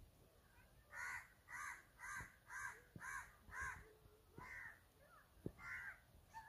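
A crow cawing outdoors: a quick run of six harsh caws, about two a second, then two more spaced further apart.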